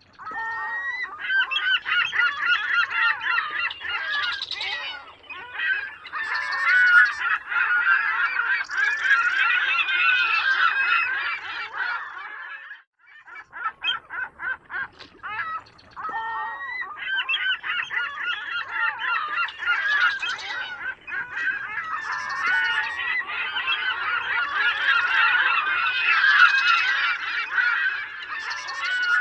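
A flock of gulls calling all together, many calls overlapping. About halfway through, the chorus thins for a few seconds to scattered short notes, then the dense calling resumes.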